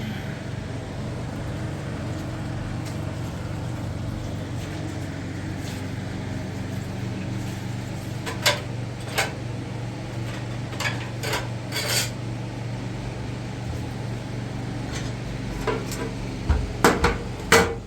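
Scattered sharp clinks and knocks of hard objects, a few in the middle and a quick run of them near the end, over a steady low hum.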